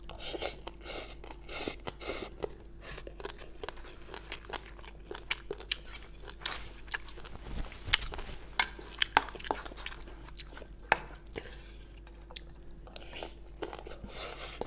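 Close-miked eating: wet chewing and lip smacking of a mouthful of rice mixed with braised pork-knuckle sauce, with many short sharp clicks, the loudest a little past the middle.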